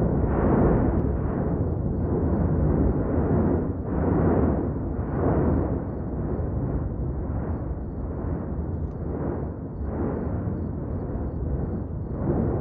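Erupting volcano: a deep continuous rumble that swells in pulses about once a second.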